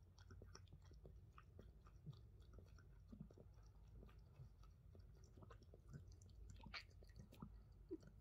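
Himalayan Persian cat lapping water from a drinking glass: a faint run of quick, wet tongue clicks, several a second.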